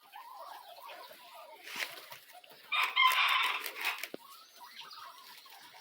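A rooster crowing once, a loud call lasting about a second and a half starting near the three-second mark, with softer clucking of chickens around it.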